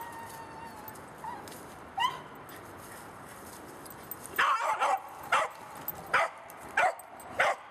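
A dog whines thinly at the start and again briefly about two seconds in, then gives six short, high, sharp barks over the last three seconds.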